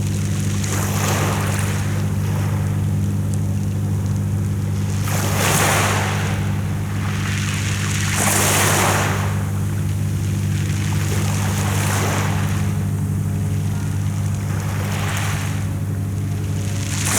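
Sea waves washing onto the shore, the surf swelling in several hissing surges a few seconds apart over a steady low hum.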